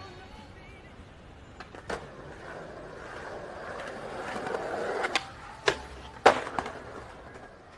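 Skateboard wheels rolling on concrete, growing louder, then the sharp clack of the tail popping and a few hard clacks as the board strikes and leaves a metal handrail. The loudest clack comes about a second after the pop.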